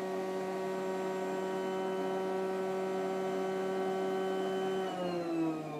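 Sleep Number bed's electric air pump running with a steady hum as it inflates the air chamber toward the top firmness setting. About five seconds in its pitch starts to slide down.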